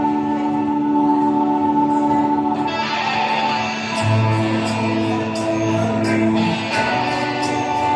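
Live band music: a guitar holding long sustained notes over drums, with a cymbal ticking regularly and a deep bass note coming in about halfway through.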